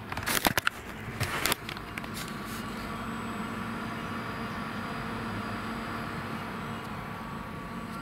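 Brass Monkey dual-zone 12 V fridge-freezer's compressor and cooling fan running steadily, just cycled on: a steady hum with a few held tones, not the quietest but far from noisy. The first second and a half brings knocks and rustles from the camera being handled close to the fridge.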